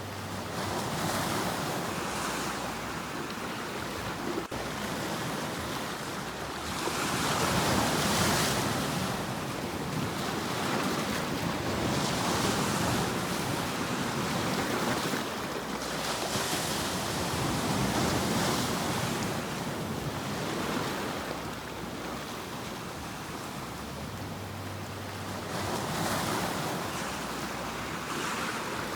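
Sea waves, the surf rising into louder swells every few seconds and falling back between them.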